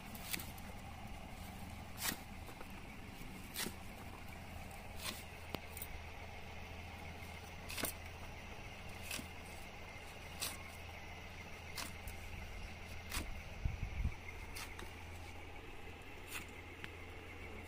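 A knife chopping through rolled colocasia (taro) leaves and crisp stalks, one sharp cut about every one and a half seconds, over a steady low hum.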